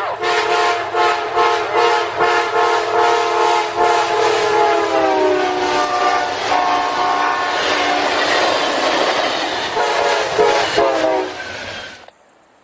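Diesel locomotive air horn sounding a chord of several tones as a train passes, the chord dropping in pitch partway through, with wheels clicking over rail joints. Cuts off abruptly near the end.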